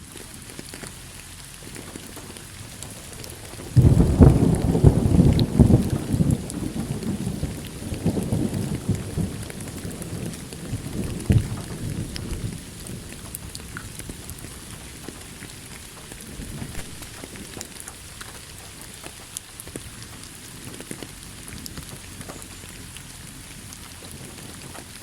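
Steady rain with a thunderclap about four seconds in that rumbles on, swells once more and dies away over the next several seconds, leaving the rain alone.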